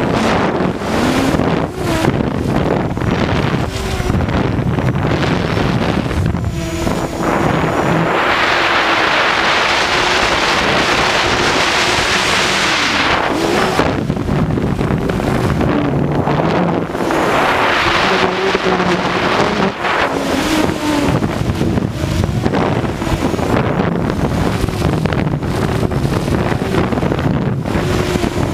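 Hexo+ camera drone's motors and propellers buzzing steadily, the pitch wavering up and down as it flies and follows. Wind rushes over the microphone throughout, swelling into a long gust about eight seconds in and a shorter one about seventeen seconds in.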